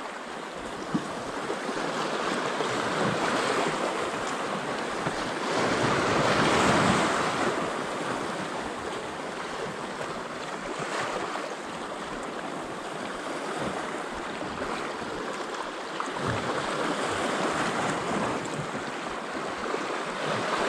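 Sea waves washing over a rocky shoreline, with a louder surge of surf about six seconds in.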